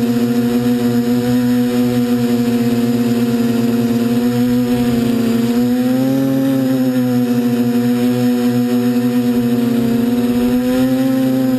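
F450 quadcopter's four motors and propellers running at hover, heard from the camera on the airframe as a steady droning hum. About six seconds in, the pitch rises slightly and then settles back as the motors adjust speed.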